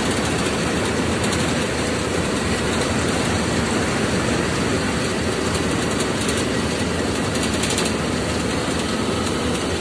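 Cab noise of a moving lorry: the engine's steady drone blended with road and wind noise in a dust storm.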